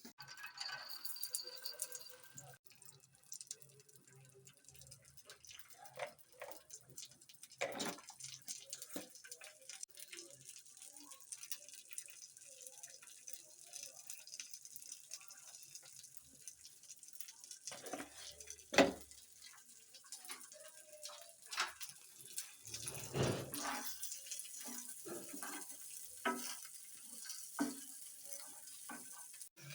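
Kitchen handling sounds while cooking corn: scattered knocks and clatters over a faint steady hiss, the loudest knock about two-thirds of the way through.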